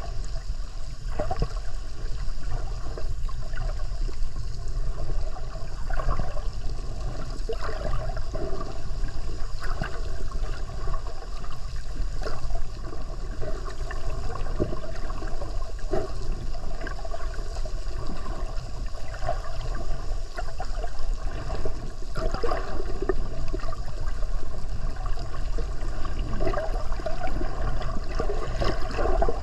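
Water noise picked up by a submerged camera: a steady low rush with scattered crackles and gurgles.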